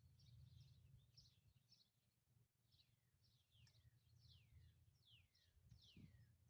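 Faint birdsong: a bird repeats a falling whistle every second or so among other short chirps, over a low steady rumble.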